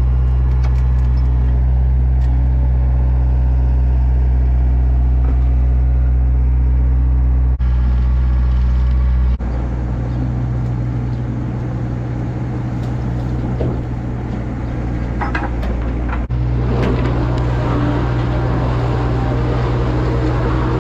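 Diesel engine of farm machinery running steadily at a constant speed. The engine sound shifts abruptly a few times as the scene cuts between machines, with a few metallic knocks about three-quarters of the way through.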